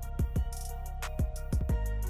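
Background music with a drum beat over held notes; a low bass note comes in near the end.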